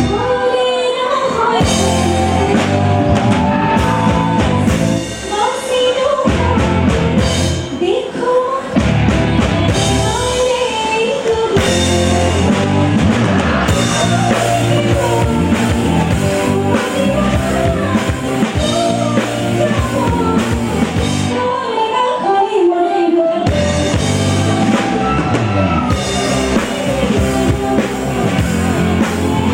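A woman singing live with a full band behind her, drums and amplified instruments, through a stage sound system.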